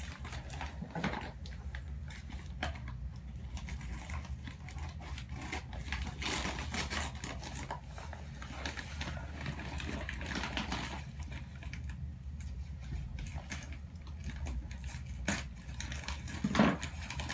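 Packing material rustling and crackling as a wrapped orchid shipment is pulled apart by hand, with irregular clicks and bits of tearing, over a steady low hum.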